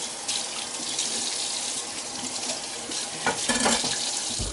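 Kitchen tap running into the sink as something is rinsed under the stream, with a few knocks and clatter in the sink about three seconds in. The water shuts off suddenly at the end.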